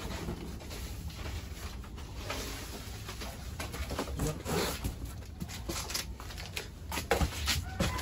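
Large cardboard sheets and boxes being pulled aside and shifted by hand: rustling and scraping with scattered knocks, the loudest a few sharp knocks about seven seconds in.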